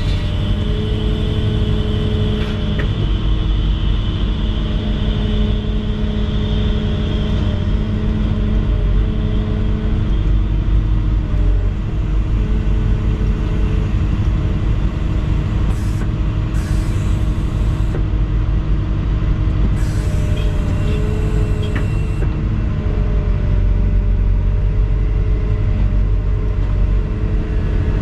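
Volvo EC220E excavator's diesel engine running steadily, heard from inside the cab as the boom works a paving-stone laying grab, with a whine that comes and goes. A few short hisses fall near the middle.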